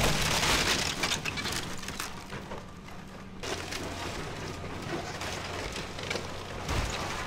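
Bulldozer demolishing a wooden building: timber and debris crackling and splintering in many quick cracks, loudest in the first second, over the steady low hum of the machine's engine. The sound changes abruptly about halfway through.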